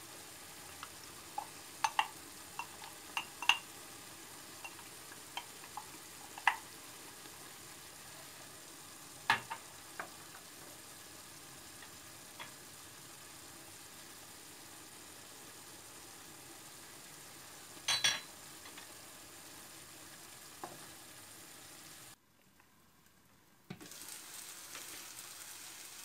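Mushroom sauté sizzling steadily in a pan while grated tomato and spices are stirred in with a wooden spoon, with scattered sharp clicks and knocks of utensils against the pan. The sizzle cuts out for about a second and a half near the end, then returns.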